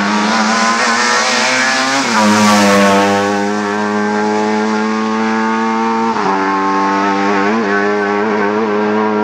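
Lada 2105 rally car's four-cylinder engine running hard under load, its pitch climbing, then dropping sharply about two seconds in at a gear change and holding high, with brief dips near six and seven and a half seconds.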